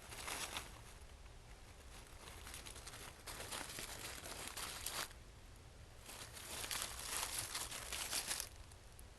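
Three bursts of crackling rustle, the first brief and the others a couple of seconds each, over a steady low hum.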